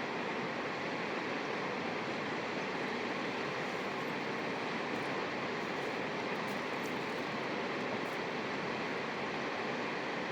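Steady rushing of running water, an even hiss that does not change, with a few faint ticks in the middle.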